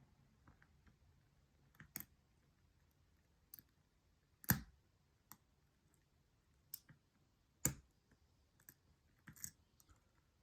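Irregular small metallic clicks from an Abus 83/45 brass padlock being picked: the pick and tension wrench working pins in the keyway, with two louder clicks about halfway in and near the end.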